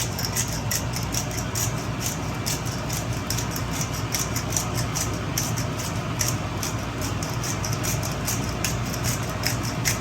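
Pepper grinder being turned by hand, black pepper going into the sauce: a quick, irregular run of small crisp ticks over a steady low hum.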